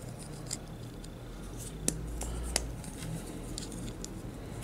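Small hard-plastic clicks and light handling as translucent plastic propeller pieces are pushed onto pegs of a transforming toy robot, with two sharper clicks a little under a second apart around two seconds in.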